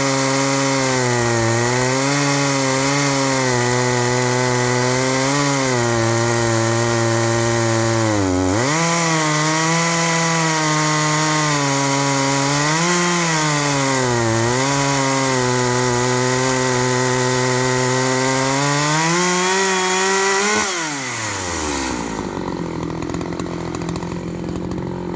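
Chainsaw mounted in a portable chainsaw-mill frame ripping lengthwise through a log at full throttle, its engine note sagging briefly a few times under load. Near the end the throttle is released and the engine winds down to idle.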